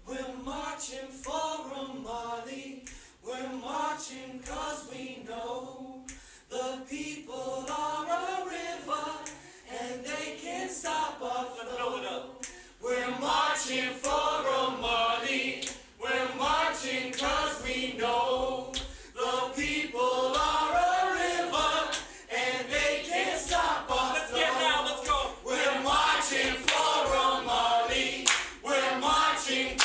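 A group of voices singing together a cappella, with no instruments heard. It gets louder about 13 seconds in.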